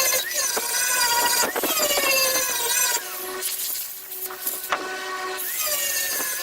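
Power grinder grinding, its whine wavering in pitch under load. It eases off to a lighter, steadier hum for about two seconds in the middle, then bites in again.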